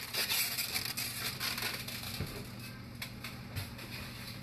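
Crinkling and rustling of crumpled plastic or paper being handled, strongest in the first second or so and then fading, followed by a few light knocks.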